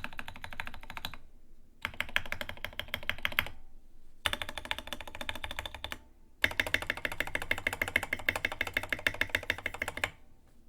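Rama.Works U80-a mechanical keyboard with stock Gateron KS-3 Yellow linear switches, a brass plate and MAXKEY KA keycaps, typed on quickly. The rapid keystrokes come in four runs separated by brief pauses, the last and longest lasting about four seconds.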